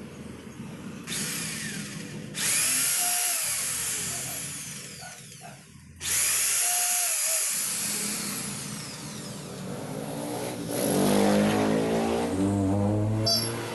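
Handheld electric drill boring into the wooden frame of a table in two runs, the first starting about a second in and the second after a brief break midway. A lower, uneven mechanical running sound follows in the last few seconds.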